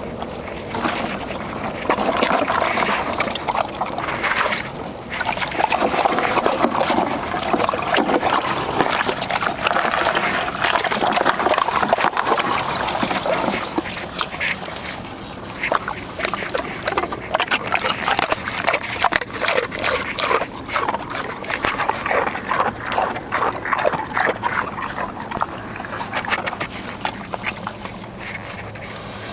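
A boar hog chewing ice from its water trough: a steady run of rapid crunches, with some water sloshing.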